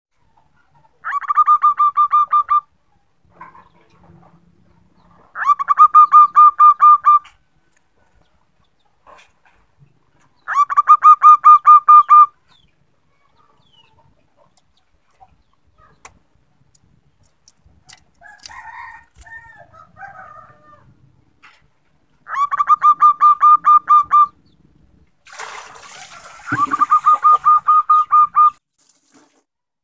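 Zebra dove (perkutut) calling: five bursts of quick, evenly repeated cooing notes, each about two seconds long. This is offered as a female's call that draws a male to answer.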